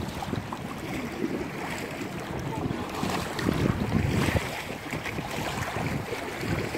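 Wind rumbling on the microphone over choppy lake water lapping and splashing, with the strongest gusts about halfway through.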